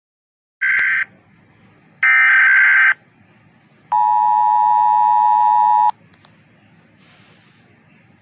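Emergency Alert System alarm tones: two short bursts of high-pitched electronic data tones, then a steady two-tone attention signal lasting about two seconds.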